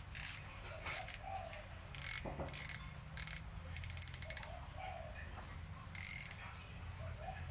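Fishing reel being turned and handled: a series of short ratcheting clicks and whirs, with a longer run of rapid clicks about four seconds in.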